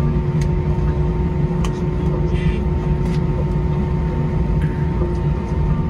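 Airliner cabin noise on the ground after landing: a steady low engine rumble with a steady hum, and a few faint clicks.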